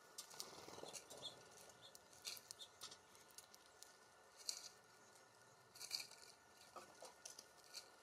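Faint, irregular clicks and cracks of small songbirds pecking and cracking seeds at a feeder, a few ticks at a time with short gaps.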